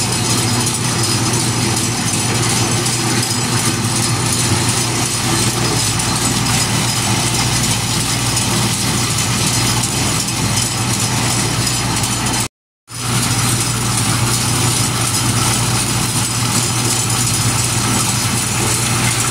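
Motor-driven grain mill (molino) running steadily while grinding a wet mix of pumpkin seeds, maize, tomato, green chile and onion into paste: a loud, even hum with a gritty grinding noise. It breaks off for a moment about twelve and a half seconds in, then carries on as before.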